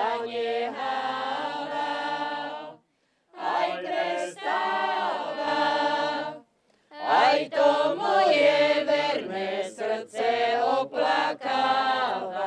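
A group of women's and men's voices singing a Slovak folk song a cappella, in phrases a few seconds long with short breaks between them.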